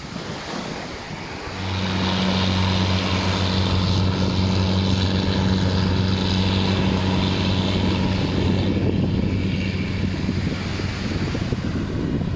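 A steady, low engine drone at one pitch starts suddenly about a second and a half in and fades out near the end, over wind and surf.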